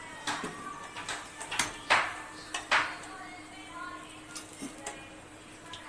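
Metal spatula scraping and clinking against an iron kadai as fried potatoes are lifted out of the oil: a few sharp strikes in the first three seconds, the loudest about two seconds in, then lighter taps.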